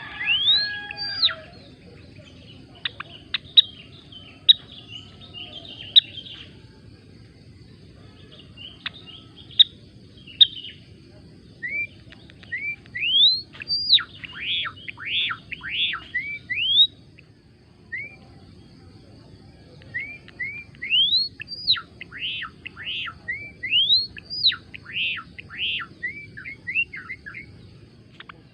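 Gelatik belong songbird chirping: sharp, upward-sweeping notes, some single and some in rapid runs of several notes, with a few short sharp clicks in the first ten seconds.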